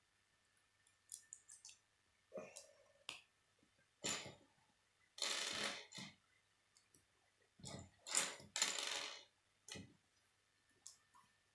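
Plastic K'nex pieces clicking as they are snapped together and clattering against each other and the wooden tabletop, in irregular bursts with a few longer rattles.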